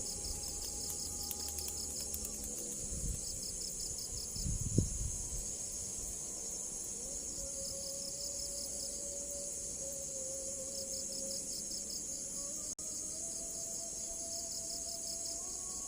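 Crickets chirring: a steady high trill with repeated short trains of quick pulses. A single dull thump about five seconds in.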